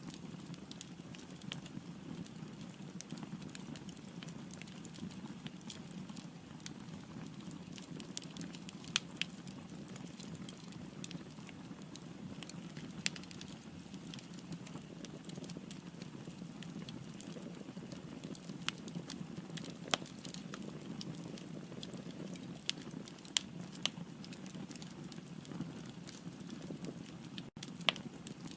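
Wood fire burning in a fireplace: a steady low rush of flame with frequent sharp crackles and pops from the burning firewood, a few of them louder than the rest. A split-second gap in the sound near the end.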